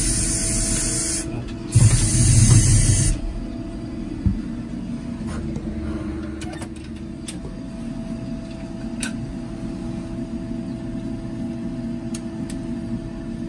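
Compact pit-launched directional drill running. A loud hiss for about the first three seconds cuts off suddenly, leaving a steady machine hum with a few light metallic clicks as the drill rod is handled.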